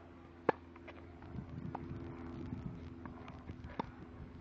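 Tennis ball being struck with a racket and bouncing on the court: a few sharp pops, the loudest about half a second in, then others near two and four seconds in.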